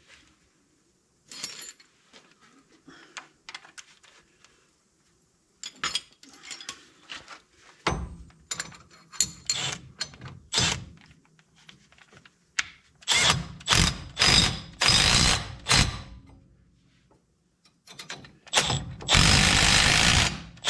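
Powered impact ratchet running bolts in on a front disc brake bracket, in several short bursts and then a longer run near the end, with tool and parts clatter before it.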